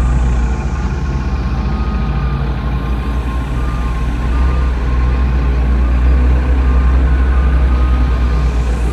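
A heavy engine running steadily with a deep, even drone.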